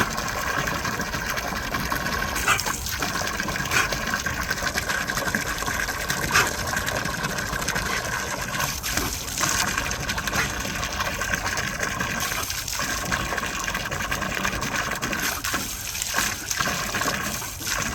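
Water gushing steadily, with a few brief sharp sounds in the first few seconds.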